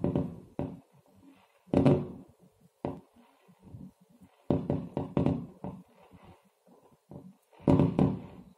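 Aerial firework shells bursting, heard as dull thuds through window glass. They go off irregularly, a few spaced out early on, then a quick cluster in the middle and another near the end.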